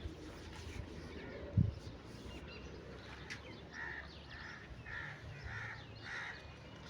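A bird calling five times in a row, about two calls a second, starting a little past halfway. Earlier, a single dull thump about one and a half seconds in.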